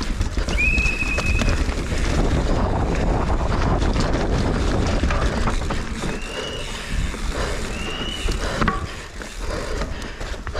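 Mountain bike descending a rough trail at speed, with wind rushing over the microphone and the bike clattering over bumps. Three short high squeals from the disc brakes come about a second in, around six seconds and around eight seconds.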